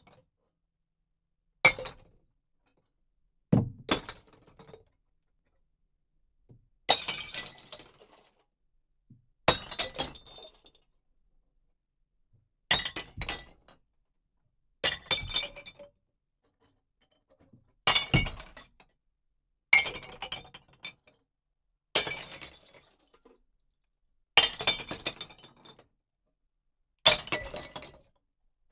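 Glass bottles dropped one at a time into a glass recycling bottle bank, heard from inside the bin. Each one breaks against the glass already inside: about eleven separate crashes, two to three seconds apart, each trailing off in clinking shards.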